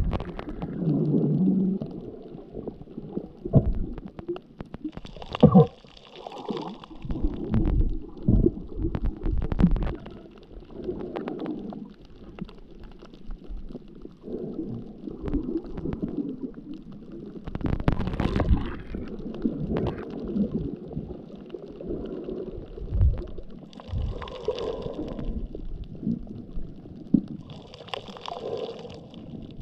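Muffled underwater sound from a camera held below the surface: uneven low rumbling of moving water, with a few louder bubbling gurgles.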